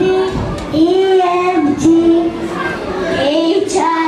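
Young schoolchildren singing a song, holding long notes of a melody.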